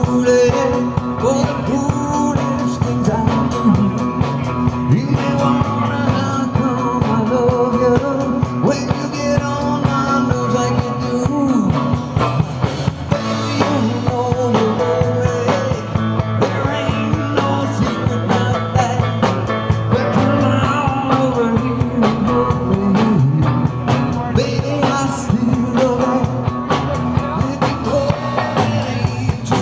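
Rock band playing live: a lead singer over electric guitars, bass guitar and drum kit.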